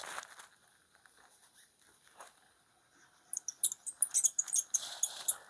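Hands handling small parts at a workbench: a brief rustle, faint scattered ticks, then from about three seconds in a quick flurry of small, sharp clicks and crinkles.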